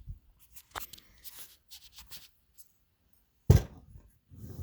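Workshop handling sounds: light clicks and rustling as tools and parts are moved on a bench, then a single heavy thunk about three and a half seconds in.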